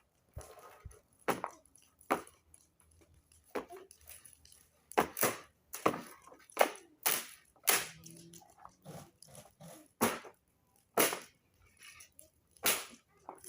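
Dog barking: about a dozen short, sharp barks at uneven intervals.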